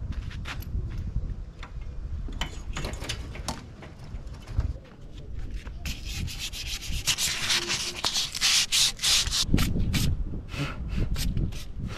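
A cloth rubbed hard over a car's steel tow ball close to the ground, a scratchy rubbing that runs continuously for a few seconds and then breaks into quick separate strokes. Scattered clicks and knocks come before it.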